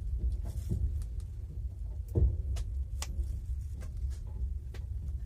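Low steady rumble of a passenger train carriage, heard from inside it, with scattered clicks and knocks and one louder thump about two seconds in.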